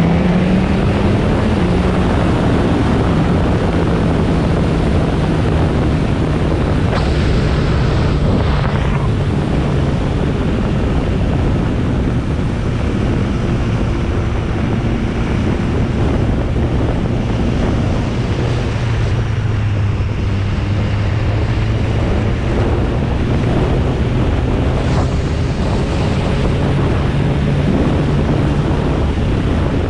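Heavy wind rushing over the microphone of a riding motorcycle, with the BMW S1000RR's inline-four engine running underneath at steady cruising revs; the engine note climbs briefly at the start, then holds.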